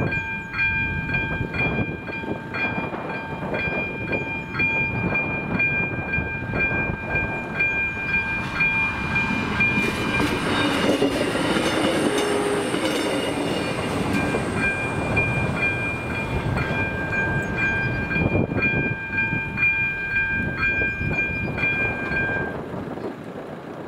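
Level-crossing warning bell ringing in steady repeated strikes while a passenger train rumbles and clatters through the crossing over the middle seconds, the loudest part. The bell stops near the end.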